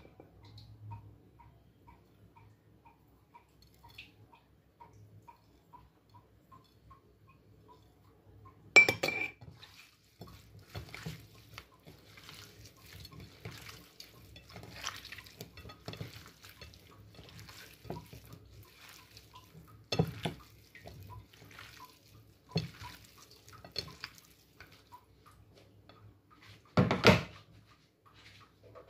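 Hands working raw pork slices on a ceramic plate: soft, wet handling noises broken by clinks and knocks of the plate, with a sharp clatter about nine seconds in and another loud knock near the end. A faint ticking, about twice a second, runs through the first eight seconds.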